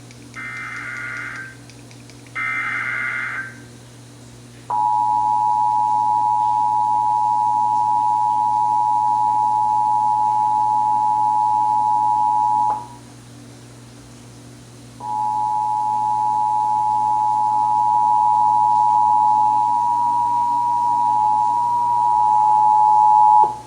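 Emergency Alert System tones. First come two short warbling SAME digital data bursts. Then, about five seconds in, the two-tone EAS attention signal starts: two steady tones near 853 and 960 Hz sounding together. It holds for about eight seconds, stops, and sounds again for about eight more seconds from about fifteen seconds in, over a faint low hum.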